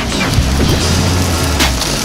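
Tree branches cracking and snapping against the BigBo all-terrain vehicle as it forces its way through forest, with a steady low hum underneath. Sharp cracks come at the start and again near the end.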